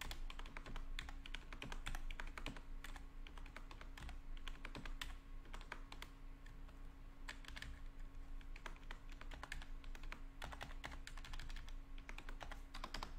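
Typing on a computer keyboard: a steady run of quick, irregular key clicks as text is deleted and edited, over a faint steady low hum.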